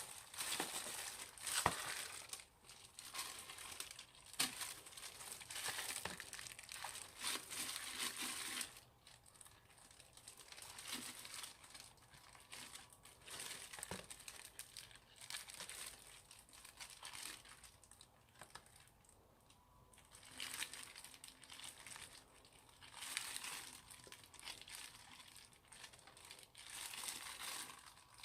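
Old slime being squeezed and pulled apart by hand, in irregular bursts of crisp, high, noisy crackle. It is loudest in the first third, softer in the middle, and picks up again near the end.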